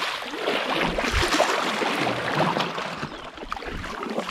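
Kayak paddles splashing and churning the water as the kayak is turned in a circle: a steady wash of small splashes.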